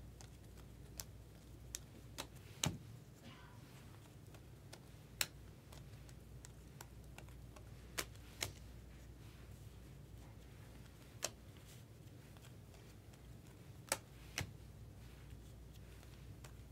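Bowman Chrome baseball cards being flicked one at a time off a hand-held stack: sharp, irregular clicks of card against card, about ten of them spaced a second or more apart, over a faint low hum.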